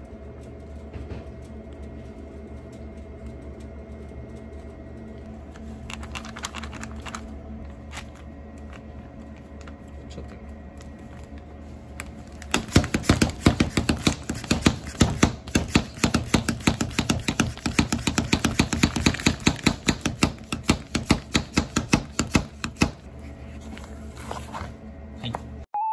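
Kitchen knife chopping fast on a cutting board, starting about halfway through and stopping shortly before the end, over a steady hum.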